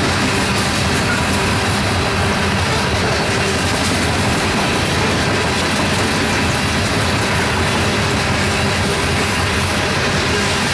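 Coal hopper cars of a freight train rolling steadily through a level crossing, steel wheels running over the rails and crossing.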